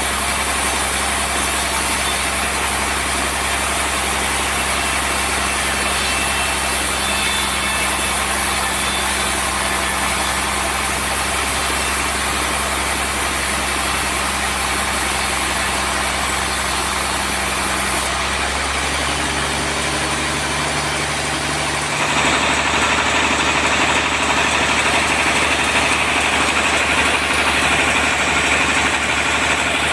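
Sawmill machinery running steadily while a trembesi log is sawn into boards. About two-thirds of the way through, the sound changes and becomes a little louder and brighter.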